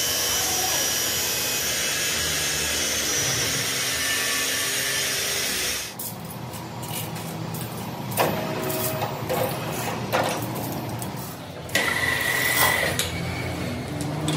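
A power tool working metal runs with a steady, loud noise for about six seconds and then cuts off abruptly. Scattered sharp knocks and clanks follow, with a brief high ring near the end.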